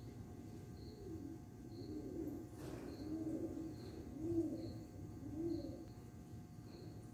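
Pigeon cooing over and over, one low coo about every second, with a faint high chirp repeating at a similar pace.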